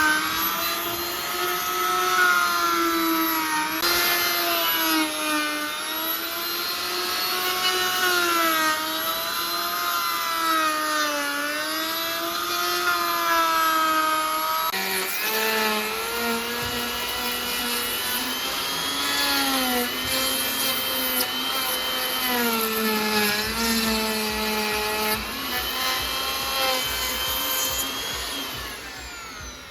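Handheld power tool working wood, its motor running loud with a pitch that wavers up and down under changing load. About halfway through the pitch drops lower, and near the end the motor winds down.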